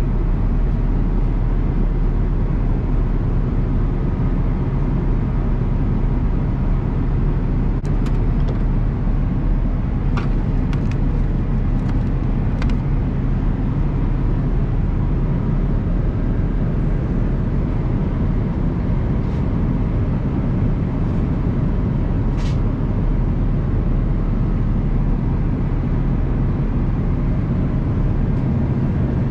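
Airbus A330-200 cabin noise during descent: a steady, loud low drone of engines and rushing air heard from a passenger seat. A few faint clicks come and go.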